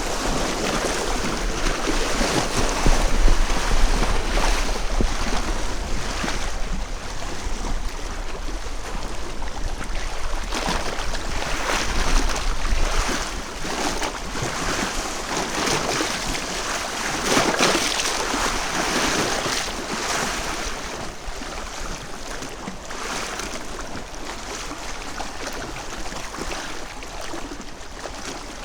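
Gusty wind and small lake waves washing on a beach, picked up by a Rode VideoMicro inside a Rode Blimp MkII windshield. The noise swells and eases with the gusts, loudest a few times in the first two-thirds, with a low rumble underneath at first, and settles lower near the end.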